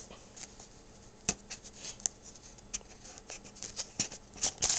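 Cardboard product box being handled, its inner tray sliding in the sleeve: scattered light taps, scrapes and rustles, with a sharper knock about a second in and a quick run of clicks near the end.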